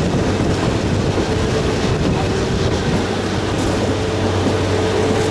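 Narrow-gauge toy train running along the Kalka–Shimla line: steady rumble of wheels and carriage with a faint held hum.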